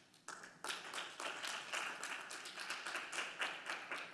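Audience applauding, many hands clapping in a dense run that starts just after the beginning and begins to thin out near the end.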